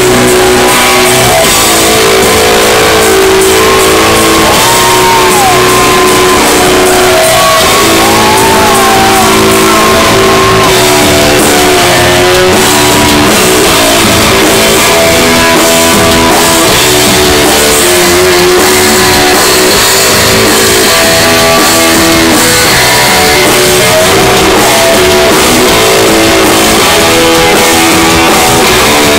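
Rock band playing live, loud, with electric guitar to the fore over drums, a few notes sliding in pitch.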